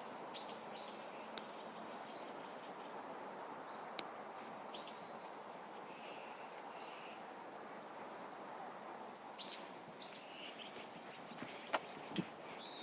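Small birds chirping, short high notes that drop in pitch, heard a few times with pauses between, over a steady rush of wind through the trees. A few sharp clicks now and then.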